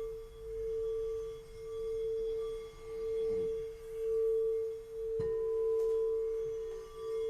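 Singing bowl ringing with a steady tone that swells and fades about once a second. A little after five seconds in, a second bowl is struck and rings alongside it at a lower pitch.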